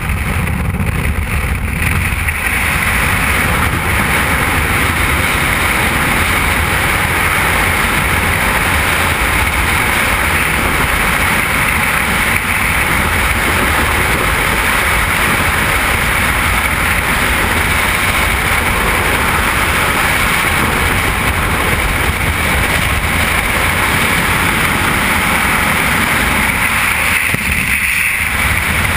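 Loud, steady rush of freefall wind buffeting a helmet-mounted camera's microphone. For the first couple of seconds the sound is the slipstream and propeller blast at an aircraft's open door, before the exit.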